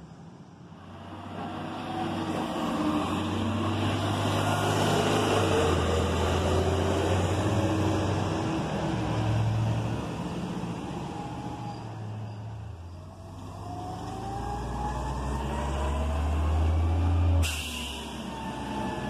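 Garbage truck's diesel engine running and pulling along the street, its pitch climbing as it revs up twice. The sound cuts off abruptly a little before the end, replaced by quieter engine noise.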